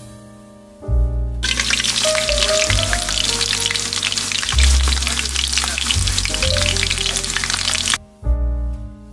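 Floured chicken pieces (karaage) frying in shallow oil in a pan, with a dense crackling sizzle that starts about a second and a half in and cuts off suddenly near the end. Piano music plays throughout.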